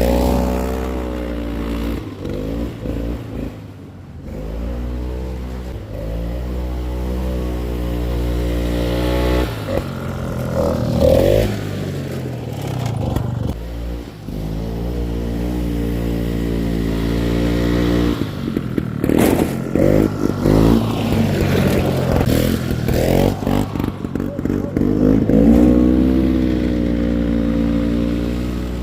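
Single-cylinder two-stroke 252cc JLO Rockwell engine of a 1965 Bolens Hus-Ski 444 snowmobile running under throttle, its pitch rising and falling repeatedly as it is revved and eased off.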